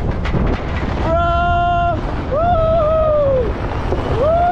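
A man leaning out of a moving pickup's window lets out three long drawn-out shouts: the first held on one note, the next two rising and falling in pitch. Heavy wind rumble on the microphone underneath throughout.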